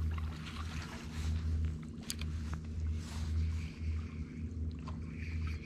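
A low, steady motor hum that swells and fades every second or so, with scattered small clicks over it.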